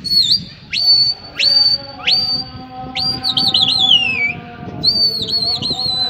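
A person whistling loudly to a flock of flying pigeons, a pigeon keeper's signal whistle. Four short whistles shoot up in pitch and hold, about two-thirds of a second apart, then two longer whistles that trill and slide down in pitch.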